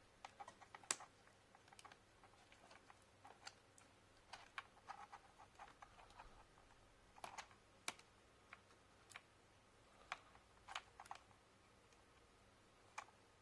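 Faint, irregular clicks and taps of small plastic parts and cables being handled and pressed into place inside an HP 15 laptop during reassembly; one sharper click about a second in.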